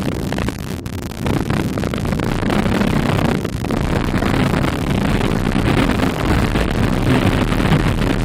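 Designed 'demonic static' sound effect: dense hissing, crackling static over a deep rumble that swells about a second in and then holds steady.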